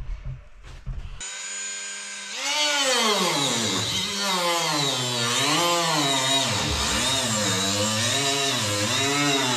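Power tool fitted with a zip cut-off disc starting up about a second in, then cutting fiberglass: its whine dips and recovers over and over as the disc loads and frees in the cut.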